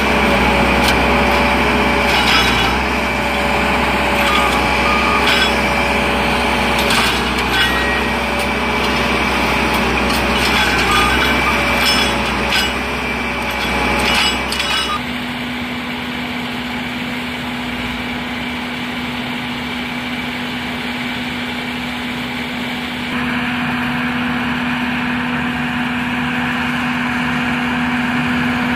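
Rail-mounted track maintenance machine with a hydraulic workhead working close by: its engine runs under a steady wavering whine, with repeated metallic knocks and clacks. About halfway the knocks stop and a steadier, quieter engine drone takes over.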